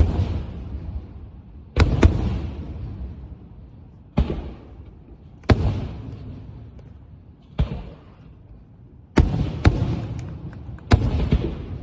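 Firework shells bursting in a show: sharp booms every one to two seconds, some in quick pairs, each trailing off in a low rumble that fades before the next.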